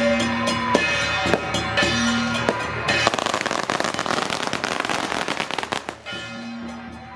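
Procession music with drum hits and held tones. About three seconds in it is swamped by a string of firecrackers going off in a fast, dense crackle lasting about three seconds, and then the music comes back.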